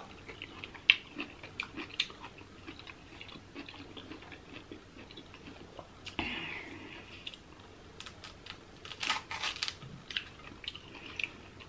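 Close-miked chewing and mouth sounds: wet clicks and smacks, with a short rustle about six seconds in and a quick run of crackles around nine seconds in as a king crab leg is handled and its meat pulled out.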